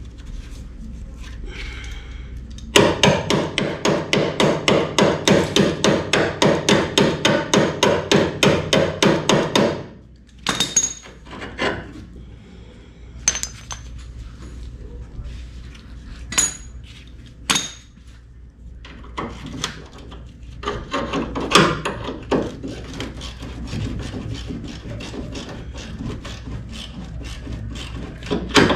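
Cordless impact wrench hammering in a fast, even rattle for about seven seconds on an engine-mount bolt, then stopping. After that come scattered sharp metallic clicks and knocks.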